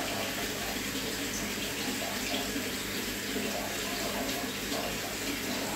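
Steady running and splashing of water circulating in a large aquarium.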